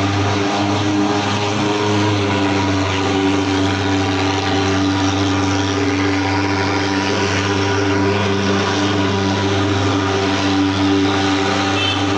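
Portable thermal fogging machine running with a loud, steady drone as it blows out a dense cloud of insecticide fog.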